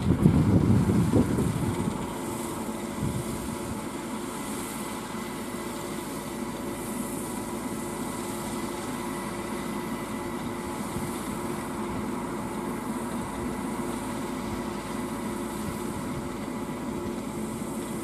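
Green Field Crop King 120 crawler combine harvester's 120 HP engine running steadily while its unloading auger discharges grain into a trailer. A few loud low rumbles in the first two seconds, then an even machine drone with steady tones.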